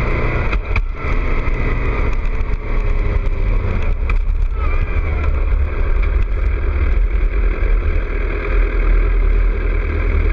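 2006 Suzuki GSX-R600 inline-four with a Two Brothers exhaust running as the bike rides along, heavily mixed with wind rumbling on the microphone.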